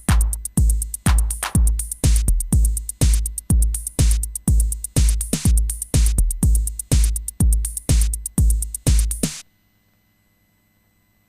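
Electronic music from a Waldorf Kyra synthesizer over a drum-machine beat: a heavy kick about twice a second with bright hi-hats. It stops abruptly about nine seconds in.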